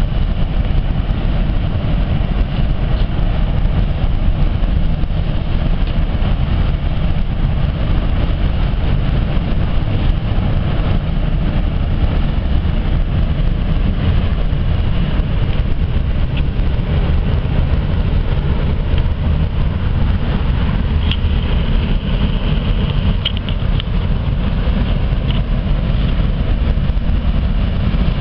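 The car ferry M.V. Clansman's engines running as she berths, a steady low rumble that keeps the same level throughout.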